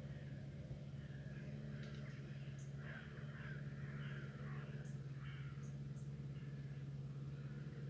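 Birds calling, a cluster of short harsh calls in the middle, over a steady low hum.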